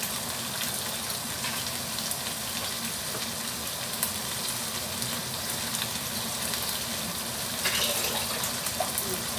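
Vegetables and curry paste sizzling steadily in a wok over a gas flame, an even crackling hiss.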